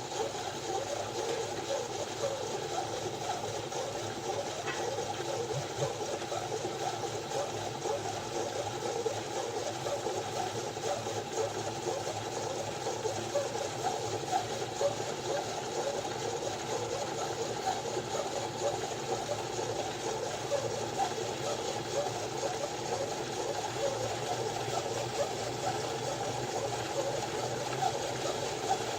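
Tacx Flux Smart direct-drive smart bike trainer running steadily, with a constant grainy, crackling abnormal noise that is the sign of a fault in the trainer.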